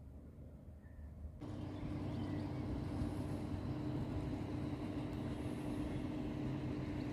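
Steady rumble of passing traffic with a low steady hum, cutting in abruptly about a second and a half in after faint outdoor quiet.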